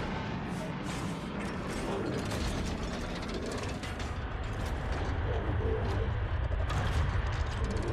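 Mechanical sound effect of rapid clicking and ratcheting, like gears and metal parts shifting and locking, over a steady low rumble.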